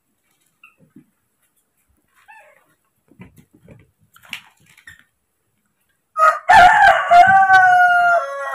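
A rooster crows loudly about six seconds in: one long call that sags slightly in pitch at the end, after a few faint taps and rustles.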